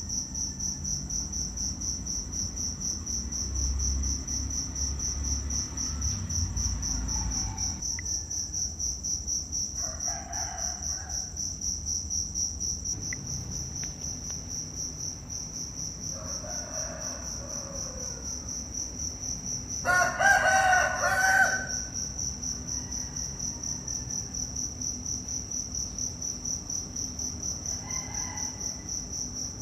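Insects chirring steadily in a fast, high-pitched pulse, with a few faint animal calls and one loud call lasting about a second and a half, about two-thirds of the way through.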